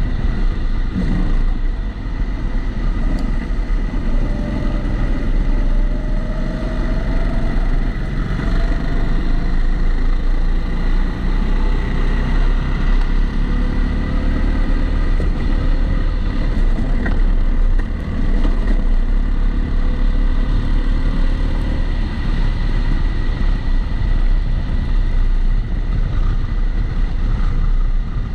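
Kombikart Eco rental go-kart running at speed, its motor pitch rising and falling with throttle and corners. Under it sits a steady rushing background noise with a constant high whine, which the uploader puts down to the camera being in a housing.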